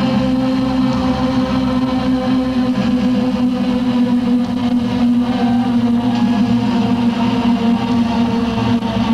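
Live rock band playing a loud droning passage: held guitar-like tones over a low drone, with no clear beat.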